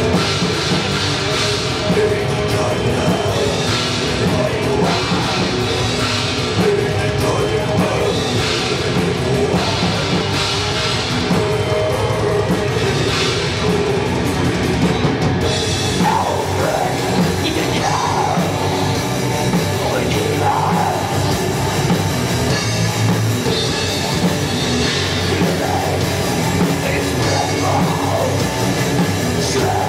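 Black metal band playing live at full volume: distorted electric guitars, bass and drum kit, with vocals sung into the microphones.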